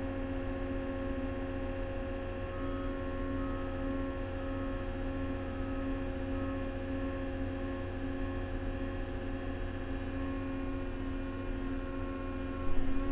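Cat small wheel loader's diesel engine held at high idle, heard from inside the cab as a steady drone with steady tones over it. The lift hydraulics are raising the loaded bucket slowly to full raise during payload scale calibration.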